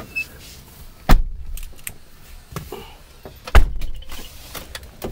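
Two sharp, heavy knocks about two and a half seconds apart, with lighter clicks and rattles between, heard from inside a car cabin as the car rolls over rough, unpaved ground: the body and suspension jolting over ruts.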